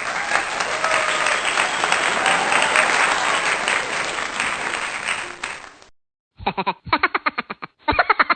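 Applause from a crowd that fades out over about six seconds. After a brief gap comes a rapid string of short, pitched pulses, several a second.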